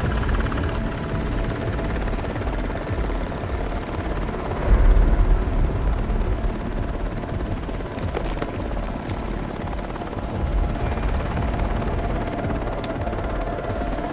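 Military helicopter in flight: rotor and engine noise as a dense, steady low rumble that swells briefly about five seconds in.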